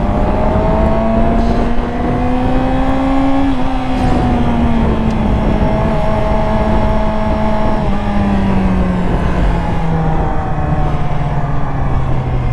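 Yamaha R6's inline-four engine under way. Its pitch climbs gently for the first three and a half seconds, then eases off and holds lower, and falls again in steps from about eight seconds in, over a steady rushing noise.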